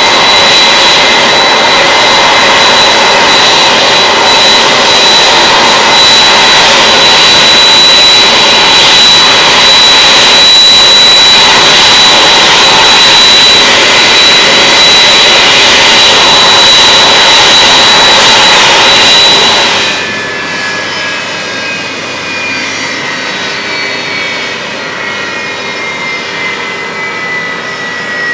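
Boeing 767-300 freighter's twin jet engines idling at a standstill, a loud steady rush with a high whine. About two-thirds of the way through the sound drops sharply and the whines glide slowly downward as the engines spool down after shutdown.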